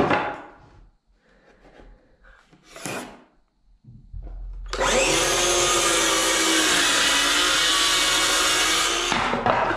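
DeWalt circular saw spinning up about four seconds in and cutting across a pine shiplap board for roughly four seconds, its pitch sagging a little under load mid-cut, then switched off.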